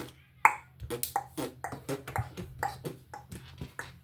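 A child making quick, uneven percussive mouth sounds, beatbox-style clicks and pops, about three or four a second.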